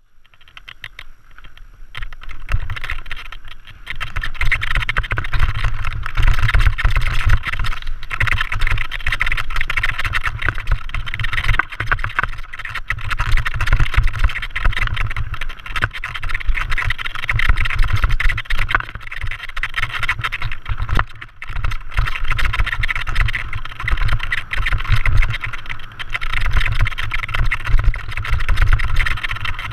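Mountain bike riding fast down a rocky stone-slab trail: tyres, chain and frame rattling over the rocks, with wind buffeting the camera's microphone. It builds over the first few seconds as the bike picks up speed.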